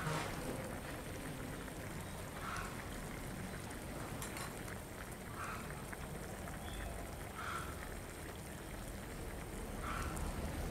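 A pot of fish broth boiling hard: steady bubbling and crackling, with a short louder blip every two to three seconds.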